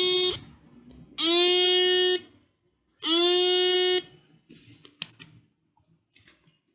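Transistor alarm circuit sounding a repeating alarm tone: three buzzy beeps about a second long and about two seconds apart, each sliding quickly up in pitch as it starts. The tone stops about four seconds in, and a single sharp click follows about a second later.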